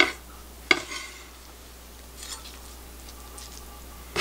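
Chef's knife cutting a fried egg and striking a wooden cutting board: two sharp knocks in the first second, then faint handling sounds as the slices are moved, and another knock at the very end.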